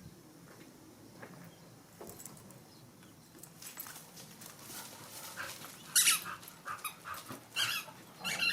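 Dog whimpering and giving short, high yips in a quick run over the second half, after a few quiet seconds. The sharpest yelp comes about six seconds in.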